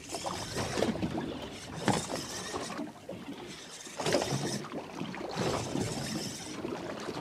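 Sea water slapping and washing against the hull of a small fishing boat, coming in irregular surges.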